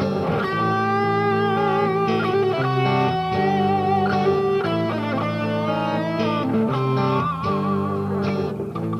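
Greco JJ-75 electric guitar played through an amp: a run of sustained single notes and chords, with a few notes wavering in pitch about seven to eight seconds in.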